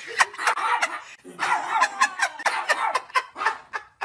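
People laughing in a quick run of short ha-ha sounds, with a brief break about a second in.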